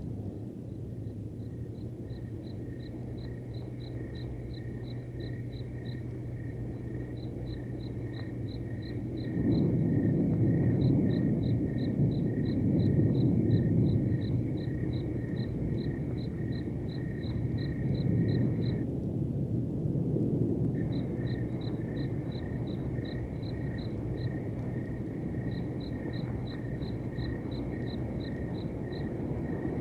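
Recorded crickets chirping steadily, about four chirps a second in long runs with brief pauses. Under them a low rumble swells up about ten seconds in and slowly eases off, with a louder surge near the middle.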